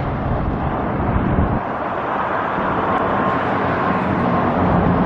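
Steady outdoor vehicle noise, a continuous rush of passing traffic, with a low engine hum coming up and growing a little louder near the end.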